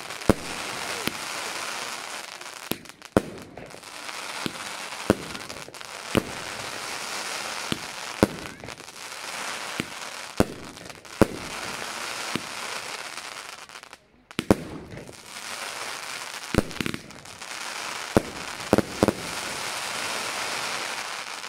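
Consumer firework battery (cake) firing in sequence: sharp bangs about once a second over a continuous crackle of bursting stars. A short lull about two-thirds of the way through, then more shots and crackling.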